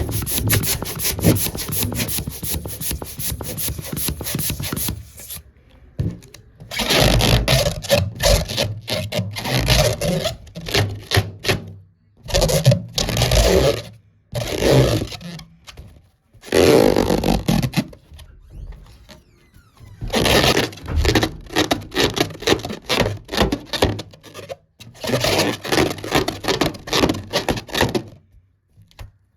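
Balloons being rubbed and handled, making rubbing and scraping sounds in bursts of a second or two with short pauses between.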